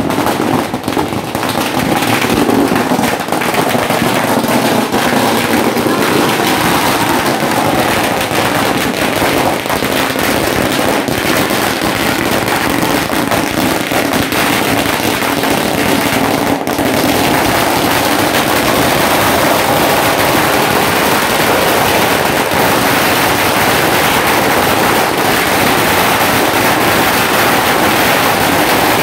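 A long run of firecrackers going off on the ground, the bangs coming so fast that they run together into one continuous crackle.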